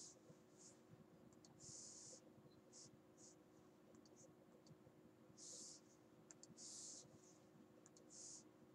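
Near silence with faint clicks and a handful of short, soft scratches from a stylus tapping and rubbing on a tablet screen, over a faint steady hum.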